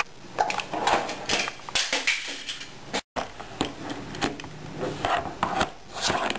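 Hard plastic baby toys knocking and clattering irregularly against a high chair tray. The sound cuts out for a moment about three seconds in.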